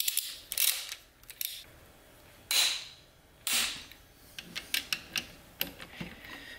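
Ratchet and torque wrench working the connecting-rod bolts of an LS V8 short block, torquing them to 82 foot-pounds. Sharp metallic clicks come first, then two longer ratcheting rasps near the middle, then a quicker run of single clicks near the end.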